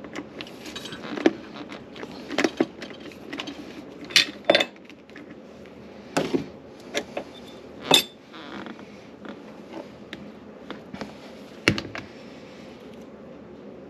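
Metal parts and tools clinking and knocking irregularly during hands-on work on a garbage disposal under a sink: about a dozen sharp metallic clicks and taps, the loudest around four, six and eight seconds in.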